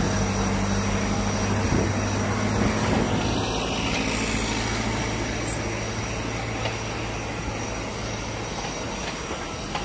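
Steady rushing noise of airport ramp machinery beside a parked airliner, with a thin high whine and a low engine hum that fades out near the end.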